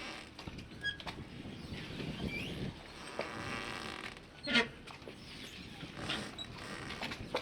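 Harbour ambience: scattered creaks, knocks and short squeaks, with one sharp, loud knock about four and a half seconds in.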